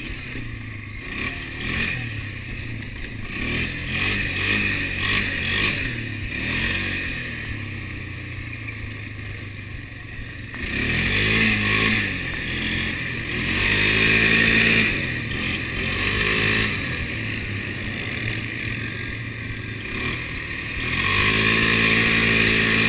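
Polaris quad bike's engine running under way, with the pitch rising as the throttle opens about halfway through and again near the end.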